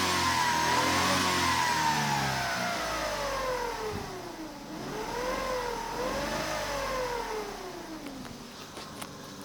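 Vauxhall Corsa C 1.0 three-cylinder engine being revved and let fall, with a clear whine whose pitch rises and falls with engine speed. The whine has been present since a new timing chain and water pump were fitted. The revs drop, rise and fall twice more, then die away near the end.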